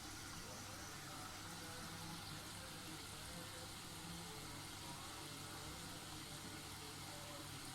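A Tornado washing machine's water inlet valve, open in self-test mode, with water running steadily into the prewash and main detergent drawers. It is faint and even, over a constant low hum.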